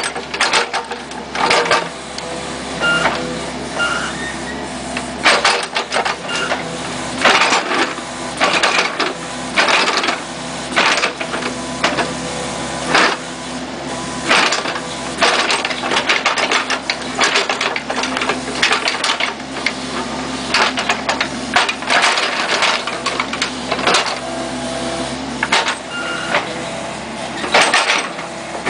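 Kubota KX71-3 mini excavator's diesel engine running steadily under hydraulic load, while its steel bucket scrapes and clanks against stones and soil in a trench, with sharp scrapes and knocks every second or two.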